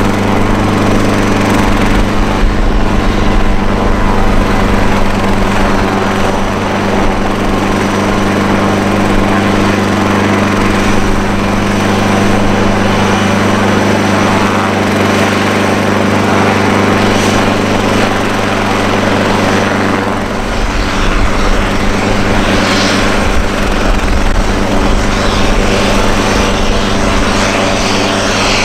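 Fairchild Swearingen Metroliner's twin Garrett TPE331 turboprops running at taxi power: a loud, steady propeller hum and engine whine.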